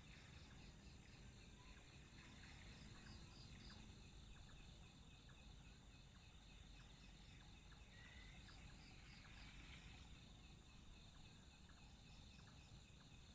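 Near silence with the faint, steady high chirring of night insects such as crickets, pulsing evenly, and a few faint ticks.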